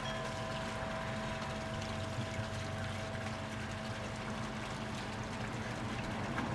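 G-scale model freight train rolling past on garden track: a steady rumble and hum of the wheels and locomotive motors.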